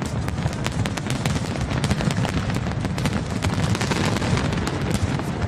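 Fireworks display going off nonstop: a dense barrage of sharp cracks and pops over a continuous low rumble of booming shells.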